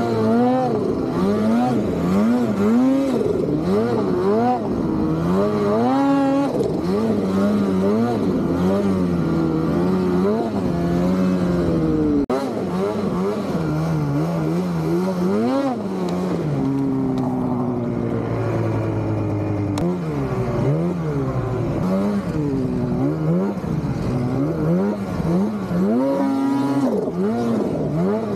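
Snowmobile engine revving up and down over and over as it is ridden through deep snow. The pitch climbs and drops about once a second, holds steadier for a couple of seconds past the middle, and a brief knock breaks in about twelve seconds in.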